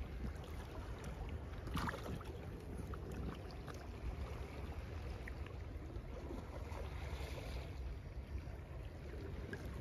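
Wind rumbling on the microphone over soft sloshing of shallow sea water around a wading angler's legs, with a few faint ticks.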